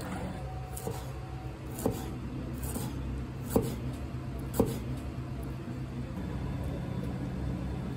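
A kitchen knife knocking against a cutting board as it slices, four sharp knocks roughly a second apart with the last two loudest, over a steady low kitchen hum.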